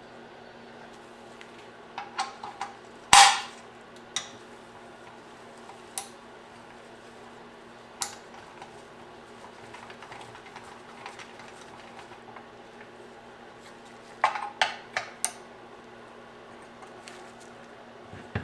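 Metal hand tools and engine parts clinking and clanking during disassembly of an intake manifold and its throttle body: scattered sharp knocks, a quick run of them about two seconds in, the loudest clank just after, and another short cluster near the end, over a faint steady hum.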